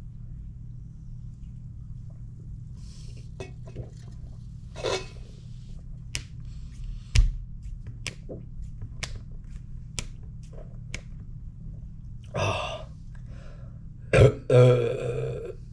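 A man coughing and clearing his throat after gulping a carbonated energy drink, trying to bring up the carbonation. The loudest bursts come near the end. Before them there is a run of short sharp clicks about every half second and a single low thud.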